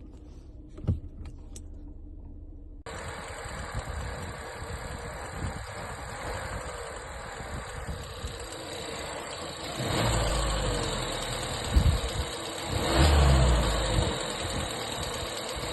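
Omoda C5 crossover running, with steady engine and road noise that cuts in suddenly about three seconds in. Heavy low thumps come repeatedly in the last few seconds.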